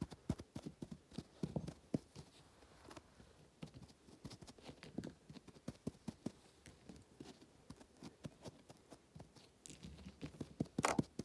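Clip-clop of horse hoofbeats: a quick, irregular run of hoof taps, with a louder noisy burst near the end.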